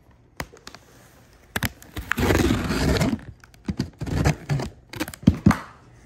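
A cardboard box and its packing being handled and opened: scattered knocks and clicks, with a loud noisy rustle lasting about a second, about two seconds in.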